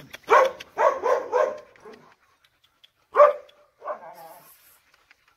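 A dog barking loudly: a quick run of about four barks, then two more spaced out, the last one drawn out a little longer.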